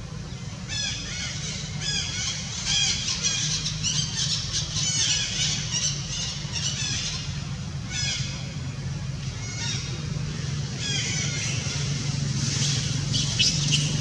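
Long-tailed macaques squealing: bouts of short, high-pitched calls, thickest in the middle and again near the end, over a steady low hum.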